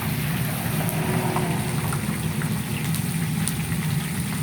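Tahu pong tofu deep-frying in hot oil: a steady sizzle with scattered small pops, over a steady low hum.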